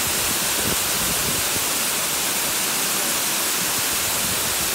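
Tall waterfall pouring steadily over a rock ledge: a constant, even rush of falling water.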